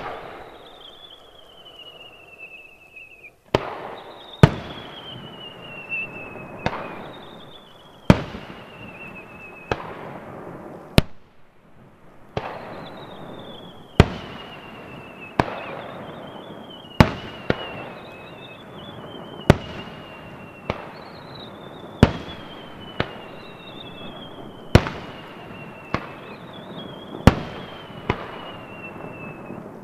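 Aerial firework shells bursting in a steady sequence, about one sharp bang every second or two, each trailing off in a rumbling echo. After many of the bangs a whistling tone slowly falls in pitch.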